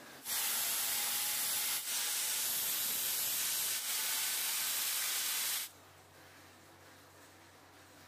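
Handheld electric disc sander grinding down the carved wooden body of a model car: a loud, steady hiss. It dips briefly twice and stops about two-thirds of the way through.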